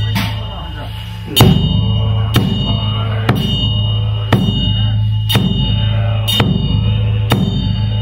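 Background music: a steady low drone with a sharp drum-like hit about once a second.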